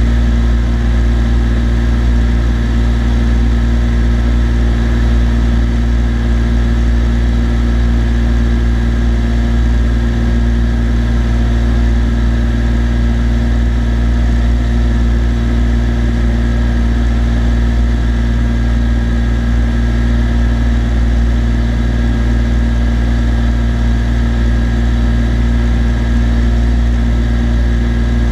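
Cessna TU-206D's turbocharged six-cylinder engine and propeller droning steadily in flight, with no change in power.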